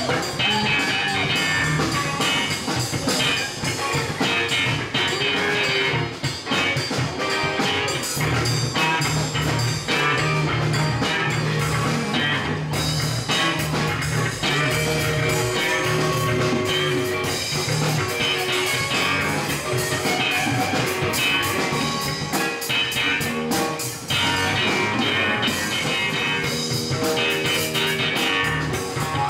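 Small live band playing: electric guitars over a drum kit, steady and loud throughout.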